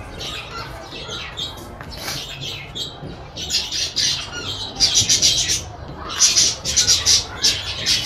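Ringneck parakeet chicks giving rapid, raspy begging calls in repeated bursts, growing louder and more frequent about halfway through: hungry chicks begging to be fed.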